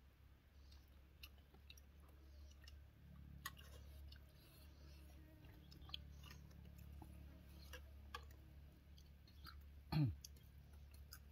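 Faint, scattered clicks of people eating rice and curry by hand: chewing and fingers on plates. About ten seconds in comes one short vocal sound that falls in pitch, the loudest thing heard.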